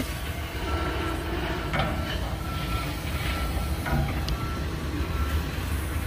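Refrigeration condensing unit running, its compressor and condenser fan giving a steady low hum, with a few light handling clicks. A faint high beep repeats a little under once a second, like a distant reversing alarm.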